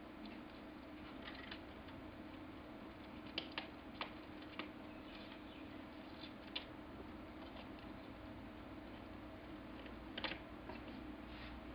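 Faint, scattered taps and scratches of a baby cockatiel's claws and beak on its box, a few sharper clicks among them, over a steady low hum.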